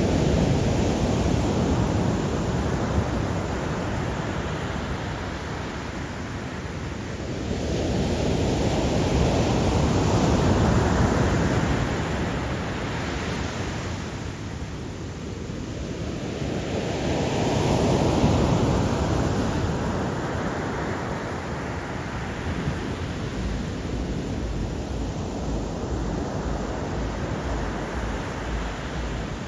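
Black Sea surf on a rough, stormy day: waves roll in and break in a steady roar that swells and ebbs about every eight seconds, three times here.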